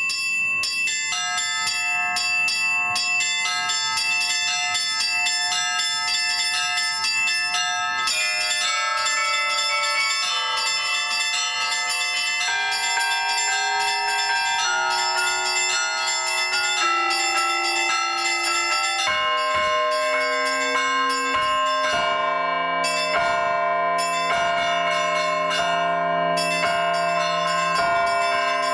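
Russian-style church bell peal (zvon) played by one bell ringer on a set of bells: rapid strikes on the small high bells over a ringing pattern of middle bells. Deeper bells join about 19 seconds in, and the lowest bell comes in from about 22 seconds.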